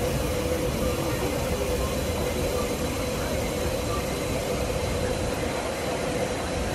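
Liliputbahn Da 2 miniature steam locomotive standing at rest, giving off a steady hiss with a constant hum.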